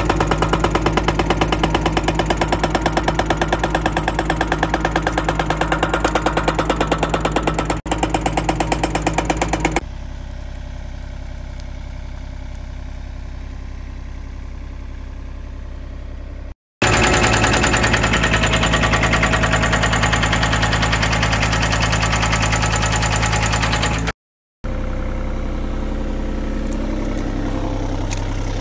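Mini excavator's diesel engine running under load, heard from the operator's seat as a loud, fast, even chugging. For stretches it drops to a quieter, steadier hum.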